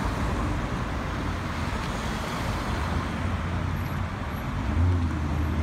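Street traffic noise: cars passing and engines running, with a low engine hum that swells briefly near the end.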